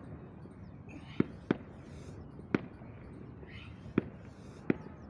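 Five sharp slaps in a loose rhythm, some in quick pairs, with short hissing exhales between them, as two men work through repeated push-up and downward-dog moves.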